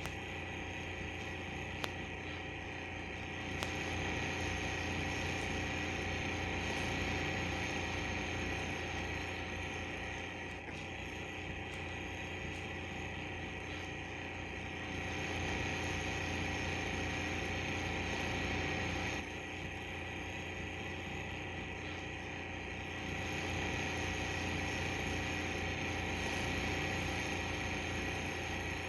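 Studio movie projector running: a steady mechanical whir with a fast, even flutter, swelling louder in stretches and dropping back abruptly about two-thirds of the way through.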